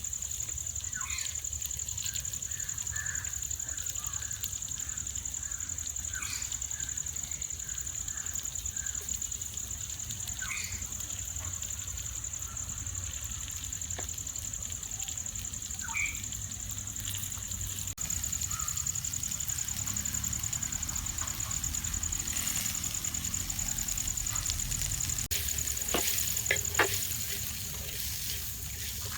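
Outdoor ambience: bird chirps over a steady high-pitched whine, with a few sharp clicks near the end.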